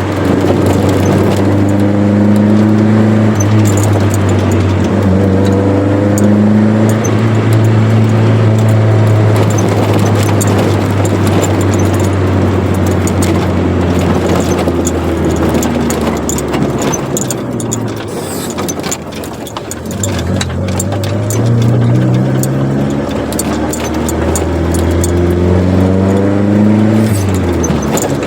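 Chevrolet Corsa Wind with an aftermarket sport exhaust driving: the engine runs steadily, eases off around the middle, then revs up twice with rising pitch and drops sharply near the end, as at a gear change or lift-off.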